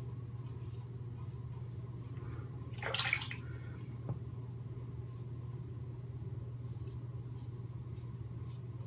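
Merkur 37 slant-bar safety razor scraping through stubble in short, faint, scratchy strokes, several in quick succession near the end, over a steady low hum. A brief louder rush of noise about three seconds in.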